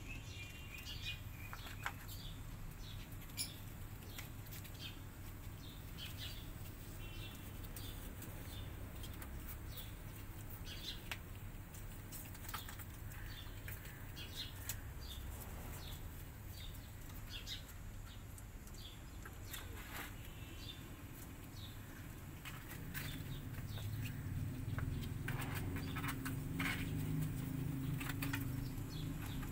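Scattered small clicks and rustles of cats moving about on a plastic sheet and crunching dry kibble, over a steady low hum. A louder low sound swells in about three-quarters of the way through.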